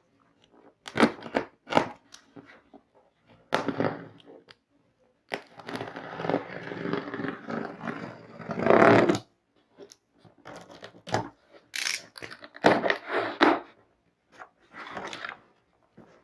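Cardboard laptop box being opened by hand: tearing, scraping and crunching of cardboard and packing tape. It comes in short separate bouts, with one long scraping stretch in the middle that is loudest at its end.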